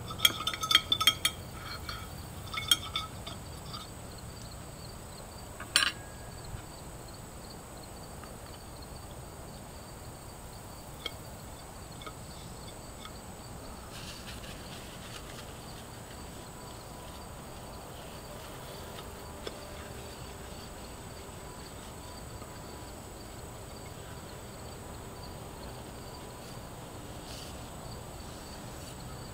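Metal cutlery clinking and scraping against a dinner plate, a quick run of sharp clinks in the first second or two and a few single clinks up to about six seconds in, then only a faint steady background.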